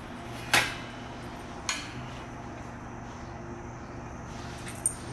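Three sharp metal clanks and clinks, the first and loudest about half a second in, as the metal frame parts of a golf ball picker are fitted together by hand: the T-bar elbow going into the front gang bracket. A low steady hum runs underneath.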